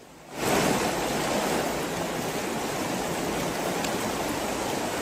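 Fast-flowing floodwater rushing past people wading through it, a steady loud rush of water that cuts in suddenly about half a second in.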